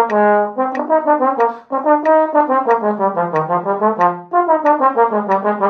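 Brass band music: a lively tune of short, quickly changing notes played in several parts at once.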